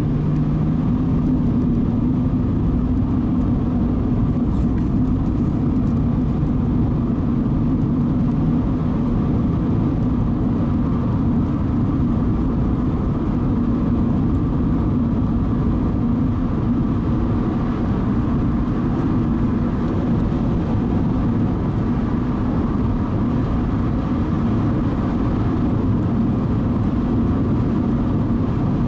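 Car driving at a steady speed: a steady low rumble of engine and road noise with no sudden events.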